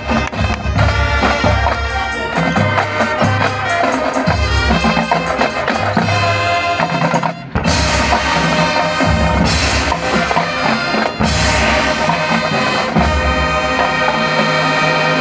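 Marching band playing live: snare and bass drums beat out a fast rhythm under the wind parts, then after a brief break about seven seconds in the brass section comes in with loud, sustained chords.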